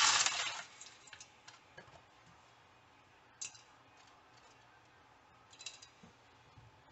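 Dry spaghetti sliding out of its cardboard box into a metal pot with a rushing hiss that stops about half a second in, then a few light clicks and ticks as the strands settle against the pot.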